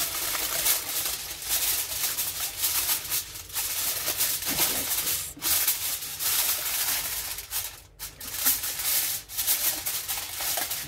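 Aluminium foil crinkling and crackling as it is pressed and folded by hand, irregular throughout with short breaks a little past the middle and about two-thirds in.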